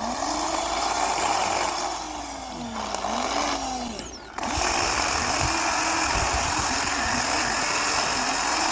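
Electric chainsaw, run from a car's 12 V inverter, cutting through oak, its motor pitch dipping and recovering under load. It eases off briefly about four seconds in, then runs steadily again.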